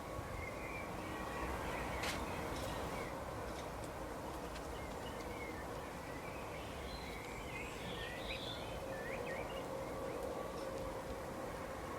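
Forest birds chirping: short, scattered high chirps over a steady background hiss, busiest a little past the middle. A single sharp click sounds about two seconds in.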